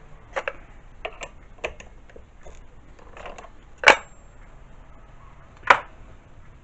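Metal tools and parts being handled at a workbench: a scatter of light clicks and clinks, then two sharper metal knocks a couple of seconds apart in the second half.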